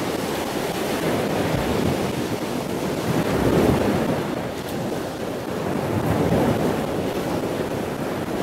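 Ocean surf breaking and washing over a reef, with wind on the microphone; the wash swells and eases every few seconds.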